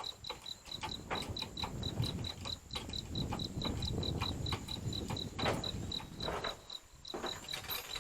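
Cricket chirping steadily, about six short chirps a second, over irregular metallic clicks and knocks from hand work on the crane.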